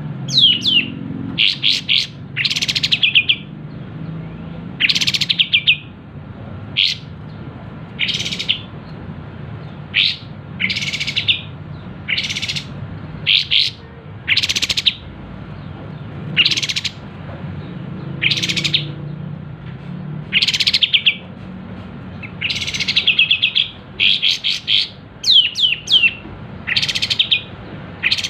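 Kapas tembak bulbul singing vigorously: short loud phrases of high falling notes and rapid trills, repeated every second or two.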